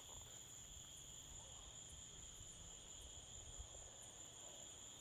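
Faint, steady high-pitched trilling of crickets, an even unbroken chorus over a weak low rumble.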